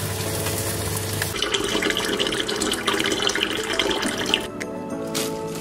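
A saucepan of water bubbling at the boil, then, from a little over a second in, tap water pouring into an open stainless steel electric kettle in a sink, filling it for about three seconds before it stops.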